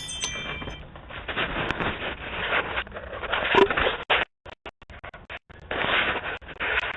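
Rustling and scraping noise heard through a doorbell camera's narrow-band microphone. The sound cuts out in several short dropouts a little past the middle.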